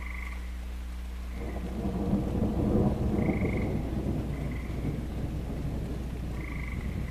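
Thunder rumbling: a low roll that swells about a second and a half in, is loudest a second or two later, then carries on as a long, lower rumble.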